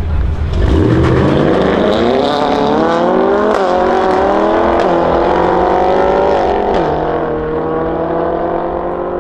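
Two cars launching hard side by side in a drag race: a Mercedes-AMG A45S's turbocharged four-cylinder on a decat Akrapovic exhaust and a Ford Mustang convertible, revving up steeply from the line. The engine pitch rises and drops back at each upshift, three times, then the sound holds steadier and fades slightly as the cars pull away.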